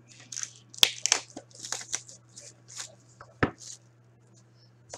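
Plastic shrink wrap crackling as it is torn and peeled off a hockey card box. About three and a half seconds in, a single sharp knock as the box is set down on the table.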